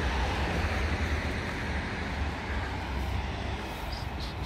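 Steady low rumble of passing road traffic, slowly fading.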